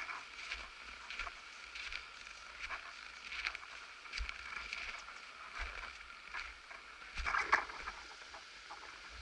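Footsteps in packed snow, crunching in an even walking rhythm of about one step every three-quarters of a second, with a louder cluster of crunches about seven seconds in.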